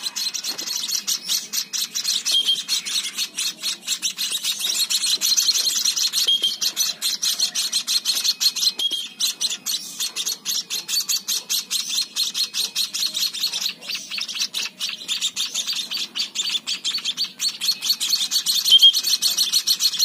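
Young munia (emprit) fledglings begging for food with rapid, high-pitched chirps, many per second, without a break, as they are hand-fed from a syringe.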